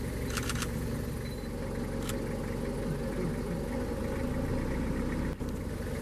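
Safari vehicle's engine idling steadily, a low hum with a haze of noise, while the vehicle stands still for viewing.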